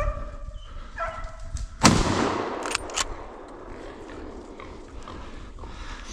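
A single gunshot from a hunting rifle about two seconds in, echoing as it fades, followed about a second later by two sharp clicks. Hounds bark briefly before the shot.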